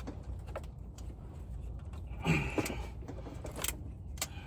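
A few sharp clicks and light knocks of engine intake parts and hoses being handled and worked loose, over a steady low hum.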